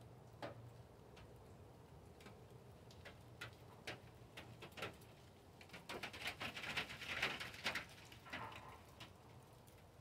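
Scattered raindrops ticking and pattering, irregular single drips with a denser flurry of drops from about six to eight seconds in.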